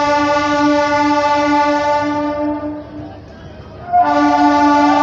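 Train horn sounding a long blast at one steady pitch that stops about three seconds in. About a second later a second blast begins. Heard from aboard the train.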